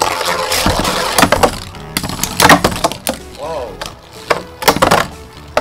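Metal Fight Beyblades, Lightning L-Drago 100HF and Ray Striker D125CS, spinning and clashing in a plastic stadium: a rasping whir of the tops, broken by about five sharp clacks as their metal wheels hit each other.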